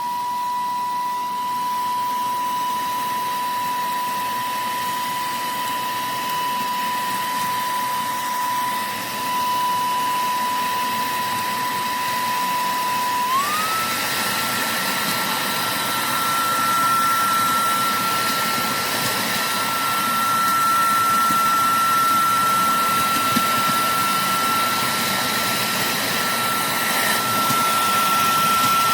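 EBOSSOM cordless handheld vacuum cleaner switched on, its motor spinning up to a steady high whine over a rush of air. About 13 seconds in, the motor speeds up to a higher pitch and holds there.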